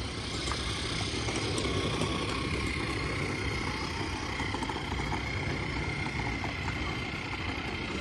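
Steady low engine-like rumble of traffic, with a thin steady whine above it.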